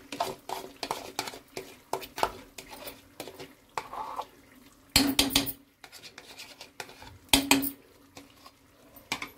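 Metal spoon stirring and scraping in a cooking pot, with a string of clicks and clinks as whisked yogurt is mixed into the chicken. Two louder clatters come about five seconds in and again about two seconds later.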